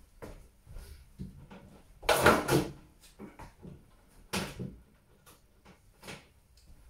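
Handling noises: scattered clicks and knocks, a louder rasping rustle about two seconds in, and another sharp clatter a little after four seconds, as a new washing machine's power cord and plug are pulled free.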